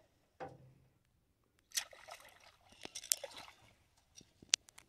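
Hooked fish thrashing and splashing at the water's surface, in two bursts of splashing about two and three seconds in, with a few sharp smacks.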